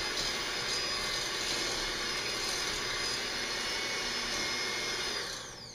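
Handheld electric blender running steadily on low, creaming butter and sugar in a bowl; near the end it is switched off and whirs down in falling pitch.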